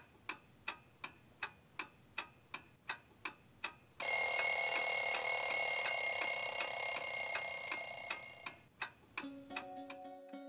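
A clock ticking at about three ticks a second, then, about four seconds in, an alarm clock starts ringing loudly. The ringing lasts about four and a half seconds and fades out. Near the end, soft plucked-string music begins.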